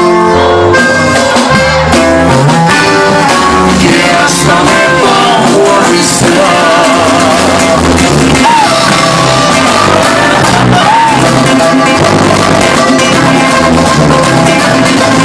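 Live norteño band playing: button accordion, bajo sexto and drum kit, loud and steady with a regular beat.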